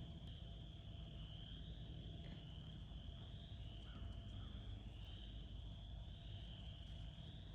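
Faint chorus of crickets and frogs: a steady high trill that swells and ebbs gently, over a low rumble.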